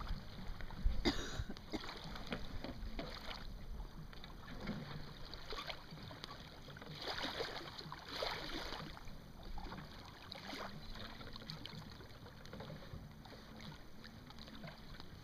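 Water lapping and splashing against the hull of a small sailboat moving in light wind: an irregular run of small splashes and slaps, the loudest about a second in.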